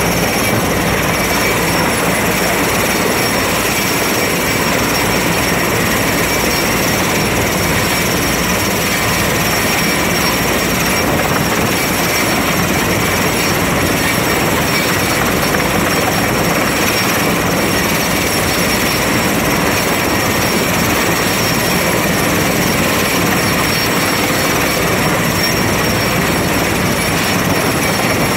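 Helicopter hovering low with a cable hook for a lift: steady, loud rotor and engine noise.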